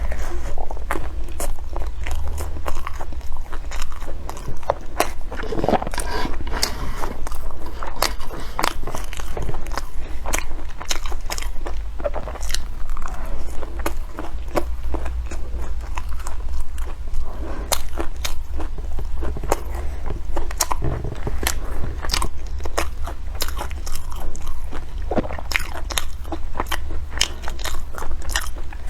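A person eating close to the microphone: repeated bites and chewing, with many small crisp crunching clicks over a steady low hum.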